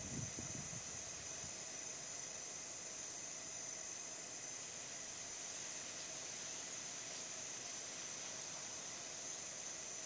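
A steady, high-pitched chorus of night insects such as crickets, with a brief low rumble right at the start.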